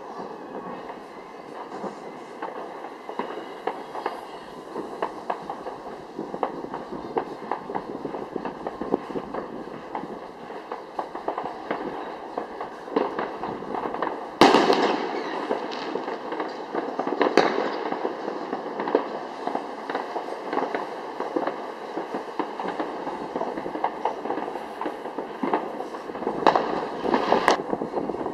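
Fireworks display: continuous crackling and popping from shell bursts, with one loud bang about halfway through and a few more sharp reports near the end.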